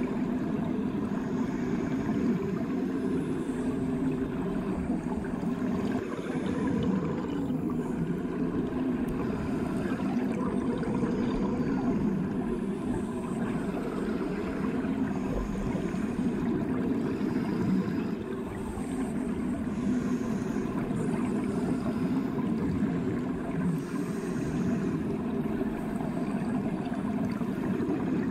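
Bathwater heard from below the surface: a steady, muffled underwater rush, strongest low down, with faint scattered higher ticks.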